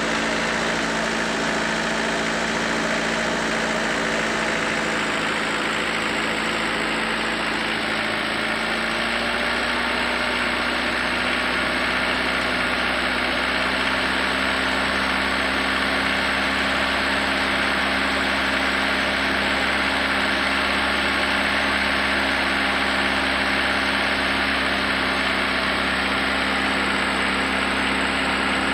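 Mitsubishi L300 diesel engine idling steadily while running through a purging (carbon-cleaning) treatment; its idle speed rises slightly about nine seconds in.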